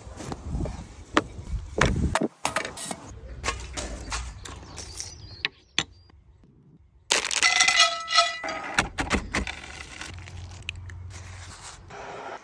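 A run of short knocks, crackles and clicks from food being handled and plated on a wooden board. About seven seconds in, after a brief near-silent gap, comes a louder burst with a short pitched squeal.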